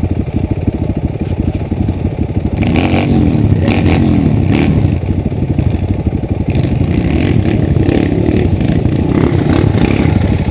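Off-road dirt bike engines running close by with a rapid firing pulse, revved up a couple of times, the loudest swell about three to five seconds in.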